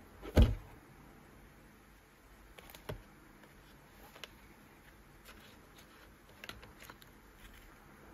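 A rigid cardboard gift box being handled and opened: one loud knock about half a second in, then a few light clicks and taps as the lid comes off and the contents in the tray are touched.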